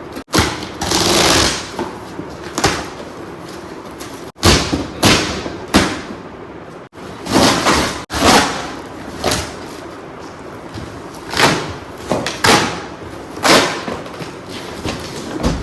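Cardboard box and packing being handled and pulled open: a series of short scraping and rustling noises, the longest about a second in, broken by a few abrupt cuts.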